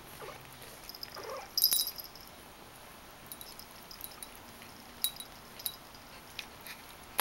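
Newborn Persian kittens mewing: a thin mew about a second in and a sharper high-pitched squeak right after it, then a few short soft clicks.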